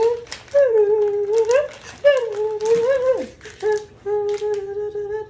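A woman humming a slow tune in three long, level held notes, with brief rustles of plastic packaging between them.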